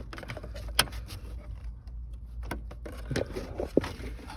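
Scattered clicks and plastic knocks from handling the instrument cluster and its wiring connector behind the dash: a sharp click about a second in, another near the middle, and a quick run of knocks near the end, over a steady low hum.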